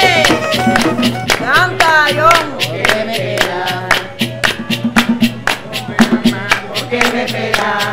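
Bullerengue music: traditional Colombian drums (alegre and tambora) beaten in a quick, steady rhythm, with a singing voice in gliding phrases over them.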